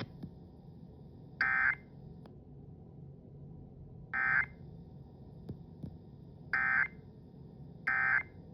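Emergency Alert System end-of-message data bursts on FM radio: four short, buzzy digital bursts at uneven spacing over a low steady hum, marking the end of the tornado warning.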